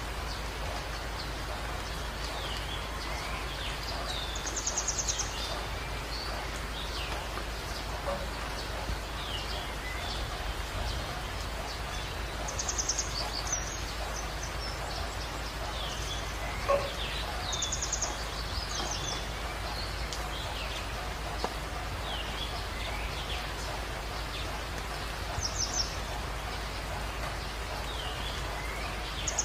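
Small birds chirping over a steady rain-like hiss: many short rising and falling chirps, with a brief high trill every several seconds.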